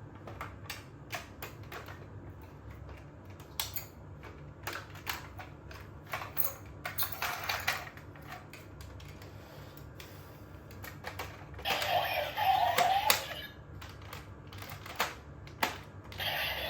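Rapid plastic clicks and snaps from the DX Tridoron toy car's parts being handled and moved, with two short, louder electronic sounds from the toy about seven seconds in and again about twelve seconds in.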